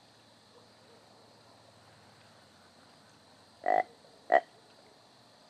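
Two short, croaky calls from a deer call blown close by, about half a second apart; the second is shorter.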